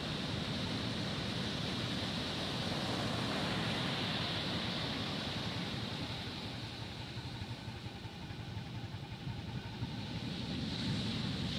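Heavy ocean surf breaking and washing up the beach: a continuous rush of waves with a deep rumble, easing a little about two-thirds through and then building again.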